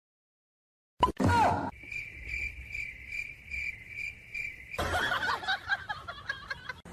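A brief loud sound with a falling pitch, then a high, even chirping repeated about three times a second for about three seconds, then a jumble of noisier sounds near the end.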